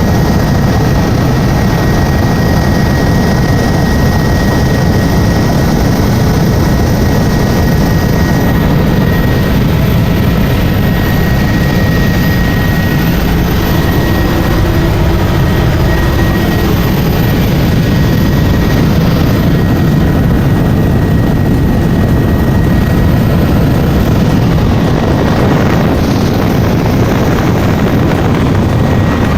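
Helicopter in flight: steady, loud rotor and engine noise with no change in pitch or level.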